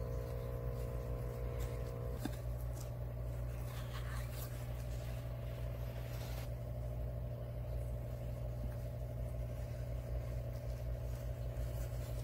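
Steady low mechanical hum with a constant drone, over a few faint knife taps and scrapes on a wooden cutting board as a fish fillet is trimmed. A higher tone in the hum stops about two seconds in.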